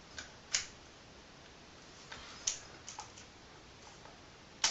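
Scattered small clicks and taps from an airsoft M16 replica being handled during reassembly, with the sharpest click near the end.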